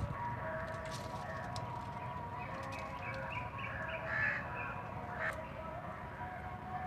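Birds calling in the background, with a cluster of short calls about three to four seconds in.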